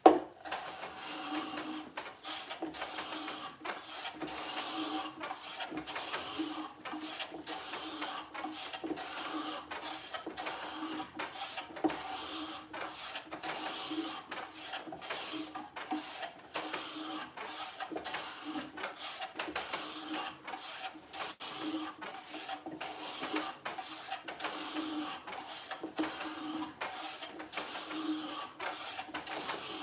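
Hand plane shaving the edge of a thin wooden drawer side in quick back-and-forth strokes, a steady rasping rhythm, taking fine shavings to fit the drawer to its opening. A sharp knock right at the start.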